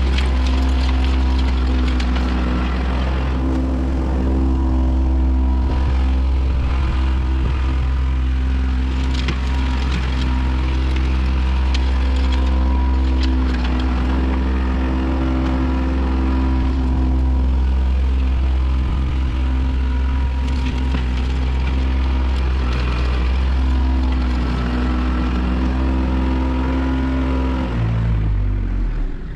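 Kubota compact tractor's diesel engine running steadily, then shut off near the end, its pitch dropping as it winds down.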